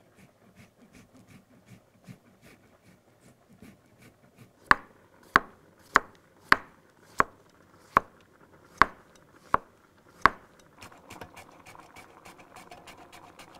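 Chef's knife slicing a zucchini into rounds on a wooden cutting board: nine sharp knocks of the blade on the board, a little under a second apart. After them comes a quick run of soft rasping ticks as zucchini is pushed over a mandoline slicer.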